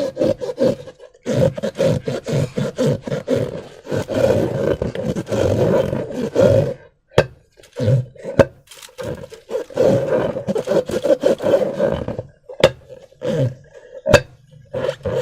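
Slime-filled rubber balloons being squeezed and rubbed by hand: the rubber squeaks and the slime squelches in irregular bursts, with short pauses and a few sharp clicks.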